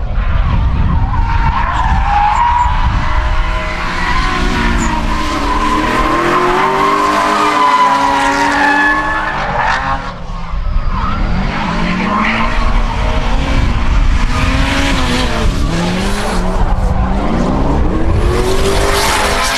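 Holden Commodore drift car's engine revving hard, its pitch rising and falling again and again with throttle, over screeching, skidding tyres. The sound dips briefly about ten seconds in.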